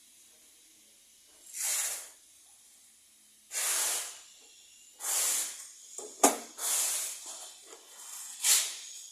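A series of five short hissing bursts, each about half a second long and spaced one and a half to two seconds apart, with a sharp click about six seconds in.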